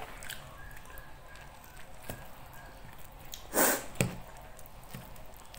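Mouth sounds of a person eating: quiet chewing and small clicks, with one louder noisy burst about three and a half seconds in, followed by a sharp click.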